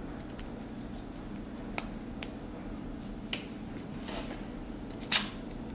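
Scattered small clicks and taps from a capuchin monkey handling and biting a plastic Play-Doh container, with one sharper, louder snap about five seconds in, over a steady low hum.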